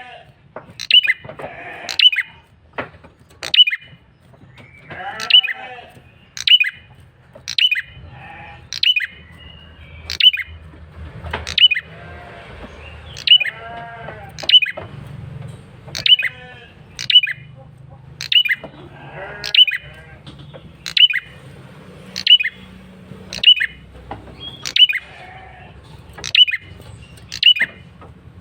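Male prenjak kepala merah singing a long run of loud, sharp call notes, about one a second, with softer warbled notes between them: the persistent lure call used to draw other prenjak in.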